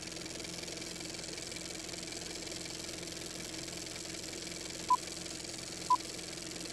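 Steady mechanical whir of a film projector running, with two short beeps of a countdown leader about a second apart near the end.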